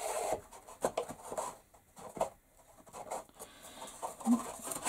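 Scattered light clicks, knocks and scraping as thin wooden pieces of a flat-pack storage unit are handled and pushed into their slots.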